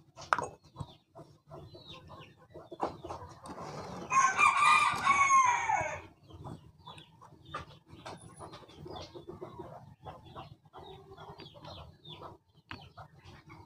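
A rooster crowing once: one long pitched call starting about four seconds in, lasting some two seconds and falling in pitch at the end, the loudest sound here. Faint clicks and taps of small plastic vape pod parts being handled run through the rest.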